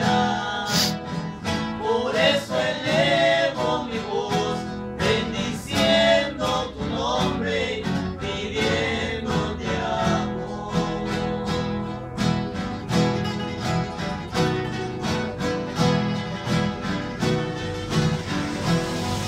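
Four acoustic guitars strummed together in a steady rhythm, with men's voices singing over them for the first half. After about ten seconds the guitars play on alone.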